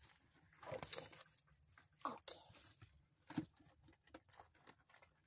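Faint rustling and soft handling sounds of a blanket being straightened, with scattered small clicks and one sharper knock a little over three seconds in.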